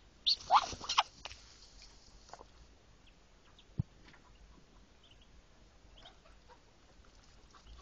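Newly hatched Muscovy ducklings peeping in the nest: short high chirps scattered throughout, with a louder cluster of calls in the first second. A single knock just before four seconds in.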